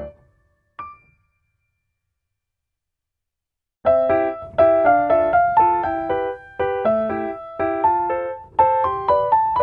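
Background piano music: a piece ends at the start, one lone note sounds about a second in, then after a few seconds of silence a new piano melody begins about four seconds in with a steady, repeating pattern of notes.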